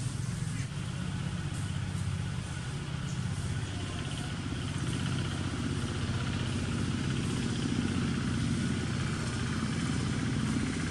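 A motor vehicle's engine running steadily at idle: a low, even hum that grows a little louder from about four seconds in.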